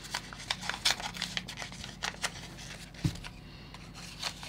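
Small paper envelope being handled and slit open with a pointed metal tool: light crinkling and short paper ticks, with one soft knock about three seconds in.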